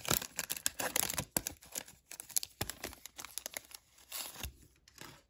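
The foil-lined plastic wrapper of a Topps baseball card pack crinkling and tearing as it is pulled open by hand, a run of irregular crackles that thins out near the end.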